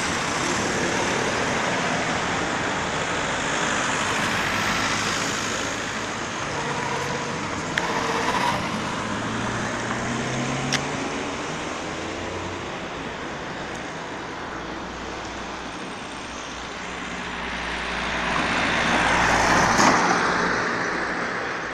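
Street traffic: cars driving through an intersection, with engine sound swelling as a car towing a small trailer passes close near the end. Two sharp clicks stand out in the middle.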